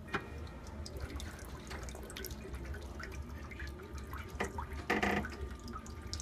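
Hat steamer boiling and hissing, its water spitting and sputtering in many small crackling pops over a steady low hum, with a louder rush of steam about five seconds in.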